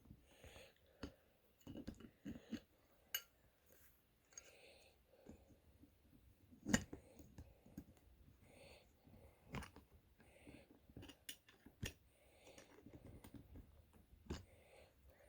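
Quiet, scattered metallic clicks and taps of a small wrench turning against a guitar tremolo's coupling hardware as the jam nut is tightened, the sharpest click about seven seconds in.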